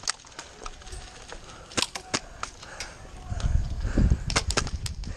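Airsoft guns firing single shots, heard as sharp snaps: two about two seconds in, then a quick cluster of three near the end, over a low rumble that starts about three seconds in.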